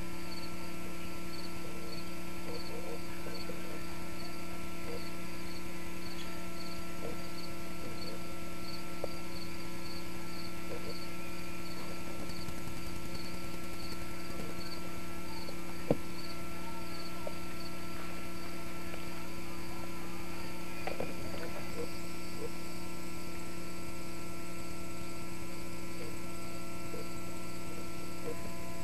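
Steady electrical hum on an old camcorder soundtrack, with a faint high pip repeating about twice a second and a single sharp click about halfway through.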